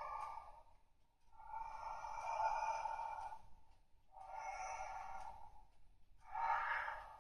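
CSM Century King Sun Driver toy belt playing a sound effect through its small speaker: three long hissing swells, each one or two seconds, with short pauses between them.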